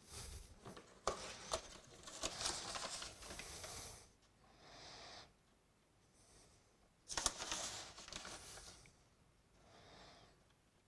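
Faint scraping and rustling of a tablespoon scooping cornstarch from its cardboard box and tipping it into a bowl of sauce, in several short bursts with a couple of light taps near the start.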